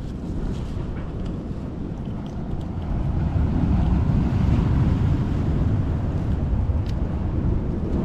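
Wind rumbling on the microphone, with waves or water faint beneath it, growing stronger about three seconds in.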